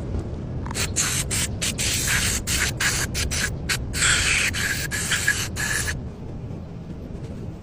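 Aerosol spray can sprayed in a quick series of short hissing bursts for about five seconds, over a steady low rumble.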